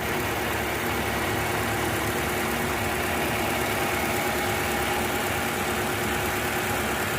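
Toyota Camry engine idling steadily after a head gasket and timing chain replacement. It comes in abruptly and runs evenly.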